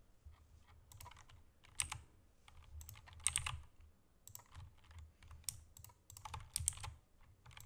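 Computer keyboard keystrokes, fairly faint, tapped in short irregular clusters about once a second.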